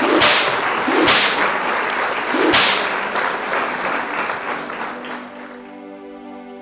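Three quick swishes over a steady hiss, the hiss fading away; soft music comes in near the end.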